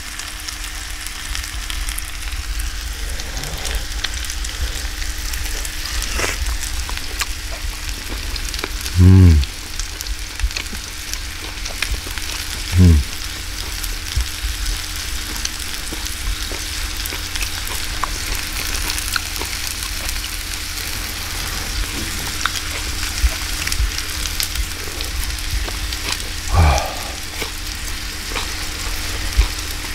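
Beef intestines (gopchang) sizzling steadily on a tabletop grill. Three short hums from a person eating stand out about nine, thirteen and twenty-six seconds in.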